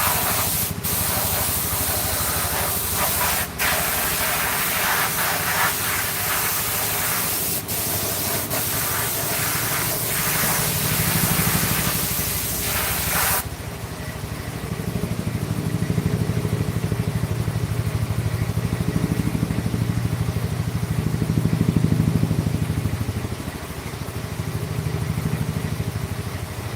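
Loud steady hiss of air spraying, with a few sharp clicks, that cuts off suddenly about halfway through. After it a low machine hum carries on, swelling and easing.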